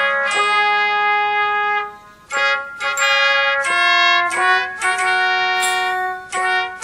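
Brass music with a trumpet-like lead: a long held note, a brief break about two seconds in, then a string of shorter notes.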